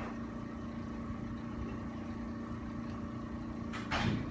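Steady mechanical hum with a few constant tones, and one short, sharp thump about four seconds in.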